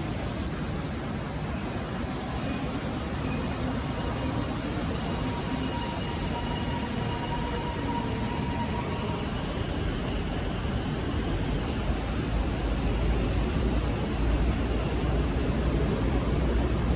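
Train noise: a steady rumble with hiss, with the low rumble growing louder over the last few seconds.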